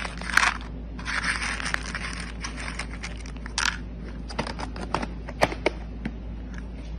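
Dry pet kibble rattling and scraping against a clear plastic cup as it is scooped and poured, then a few sharp single clicks as pieces drop against the plastic.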